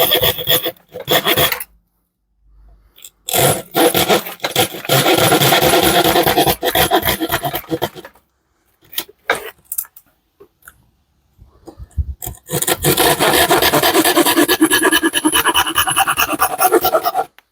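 Hand-held sabre saw blade sawing plywood by hand: quick rasping back-and-forth strokes in three spells with pauses between, the blade repeatedly getting stuck in the cut.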